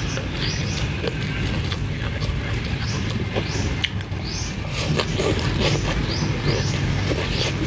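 Close crunchy chewing of shredded green papaya salad, with short clicks of biting. Above it a short, high, rising chirp repeats about twice a second, over a steady low rumble.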